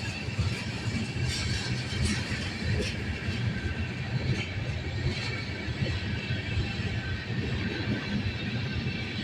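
Train rolling past: steady rumble of wheels on rails with scattered clicks from the wheels and rail joints.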